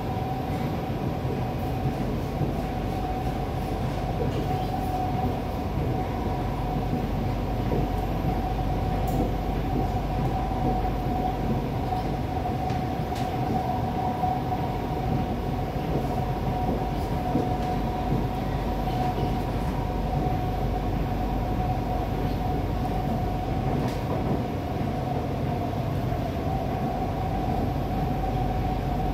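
Inside a Kawasaki-Sifang C151B metro car running at steady speed: an even rumble of wheels on rail with a steady whining tone over it and a few faint clicks.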